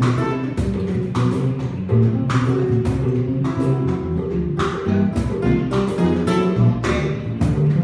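Live instrumental Latin music: acoustic guitar, upright bass and cajón playing together, with regular cajón and cymbal hits.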